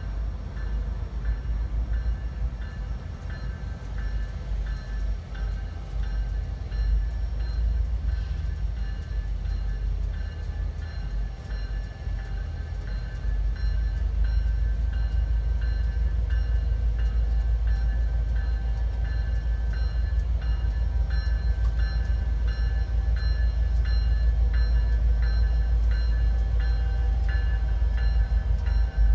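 Diesel locomotive approaching the crossing slowly, its low rumble growing louder about halfway through. A bell rings steadily over it, about two strikes a second.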